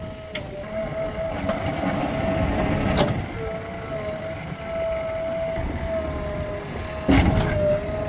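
JCB 3DX Plus backhoe loader working, its diesel engine running under a steady high whine. A sharp clank comes about three seconds in and a louder one near the end as the backhoe bucket works the soil.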